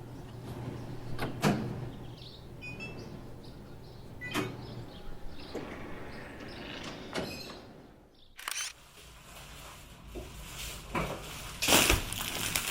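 A few sharp knocks and clicks spaced a few seconds apart over a low steady hum that stops about five seconds in; the knocks come closer together and louder near the end.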